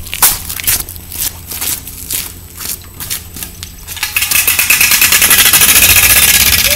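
A few scattered clicks and knocks, then about four seconds in a loud, steady rattling buzz starts as the scooter is ridden off and keeps going as it passes. The boy fitted an exhaust pipe and calls the ride really loud.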